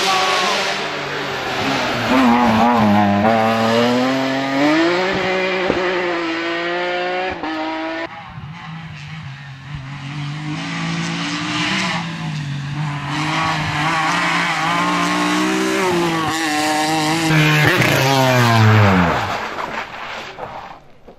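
BMW E36 3 Series rally car at full throttle on a closed road stage, its engine revving up and down through gear changes. After a cut about eight seconds in, it comes past again, and near the end the engine note drops steeply and falls away.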